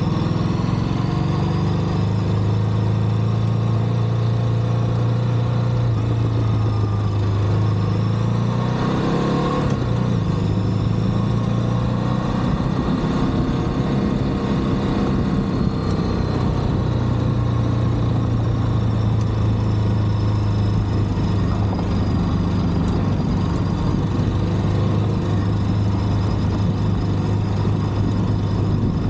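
Ducati DesertX's 937 cc V-twin engine running steadily under way, with wind noise over the microphone. About nine seconds in, the engine note rises and shifts, then settles into a steady run again.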